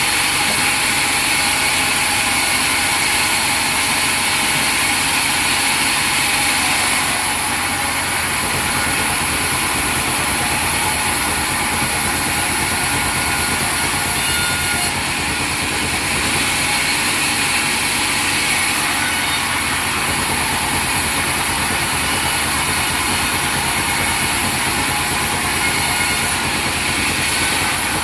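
Sawmill machinery running steadily: a continuous, loud engine-like drone with a dense hiss over it, shifting slightly in tone a few times.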